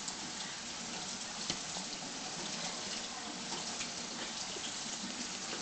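A kitchen knife cutting duck breast meat on a plastic cutting board, with one light tap of the blade on the board about one and a half seconds in, over a steady background hiss.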